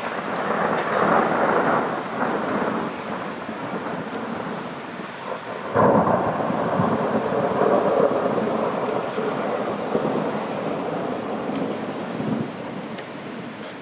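Thunder rolling during a thunderstorm. A first rumble swells about a second in, then a sudden louder peal near the middle rolls on for several seconds and slowly fades.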